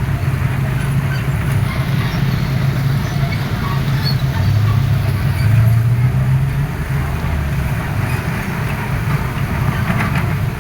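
Excavator's diesel engine running steadily, a low drone that shifts a little in pitch midway.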